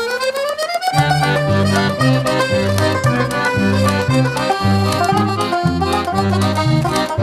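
Upbeat background music with a bouncing bass line. A rising glide in pitch ends about a second in.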